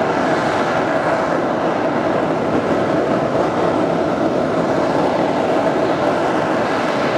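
Copenhagen Suborbitals' Nexø 2 liquid-fuelled rocket engine firing on a static test: a loud, steady rushing noise that holds at an even level without a break.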